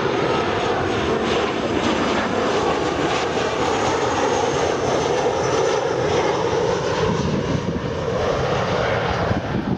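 Boeing 737 airliner's CFM56 turbofan jet engines passing low on final approach with landing gear down: a steady, loud rumble with a faint high fan whine, easing slightly near the end.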